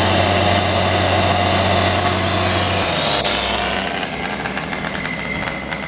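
Sullair 185 portable diesel air compressor running steadily, then shut off at the engine switch about three seconds in: its steady engine hum drops away and a lower rushing noise with light rattling carries on as it winds down.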